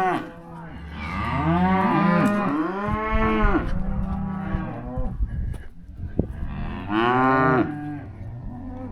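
Cattle mooing: three long, loud calls, two back to back in the first few seconds and a third near the end.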